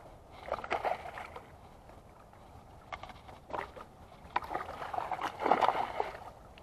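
Water splashing in three rough bursts, the last and loudest near the end, from a hooked fish thrashing at the surface as it is reeled in.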